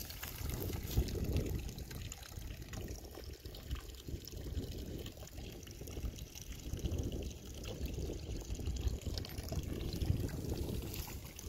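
Wind buffeting the microphone in uneven gusts, a low rumble that swells and falls.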